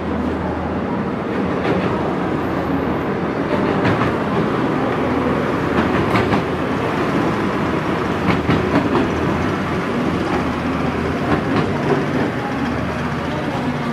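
Track-laying work train and its sleeper-handling gantry crane in motion: a steady low engine drone and the rumble of heavy rail wagons, broken by scattered metallic clanks and knocks, a few close together about 6 and 9 seconds in.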